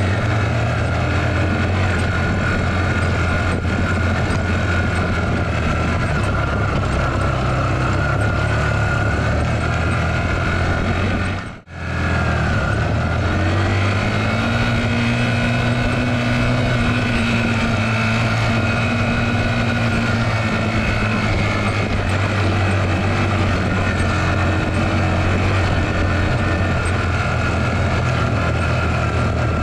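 Small 10-horsepower motorcycle engine running steadily while the bike carries about 140 kg of water on a dirt track, labouring for lack of power. The sound cuts out briefly about twelve seconds in, then the engine carries on.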